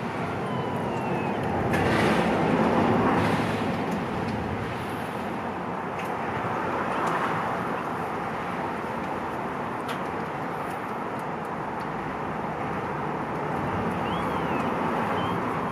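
Steady background noise of road traffic, swelling about two seconds in and falling back, with a few faint high chirps.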